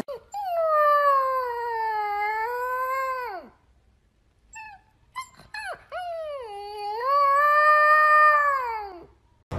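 Black-and-white husky-type puppy howling: two long howls, each dropping in pitch at the end, with a few short whimpering yips in the pause between them.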